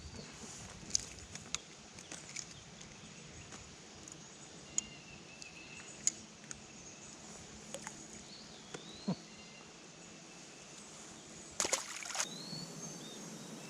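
Quiet ambience from a kayak on a river: scattered sharp clicks and knocks of gear, with a few short chirps. A tight cluster of knocks comes about twelve seconds in.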